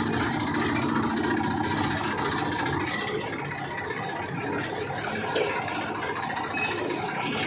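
Tractor diesel engine running steadily as the tractor drives slowly, heard close up from the driver's seat.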